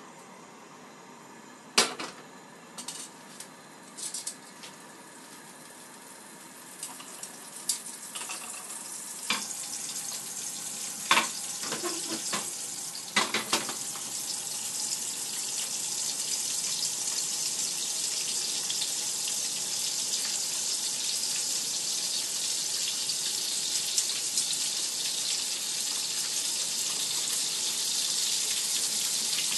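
Korean abalone frying in melted butter in a small pan: a hiss of sizzling that builds from a few seconds in and then holds steady. Several sharp clicks and clacks of metal tongs, plate and pan come before it and while the abalone go into the pan.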